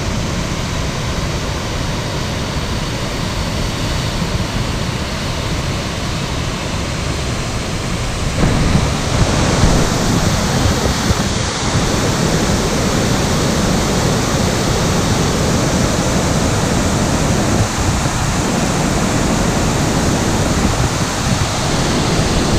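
Waterfall pouring: a steady, loud rush of falling water, too loud to talk over, growing fuller and louder about eight seconds in.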